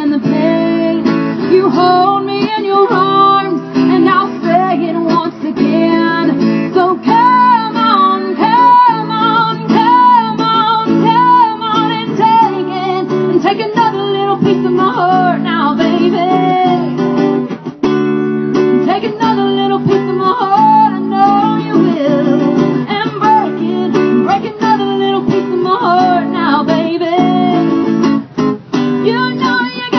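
Live acoustic music: a woman singing a melody over a strummed acoustic guitar.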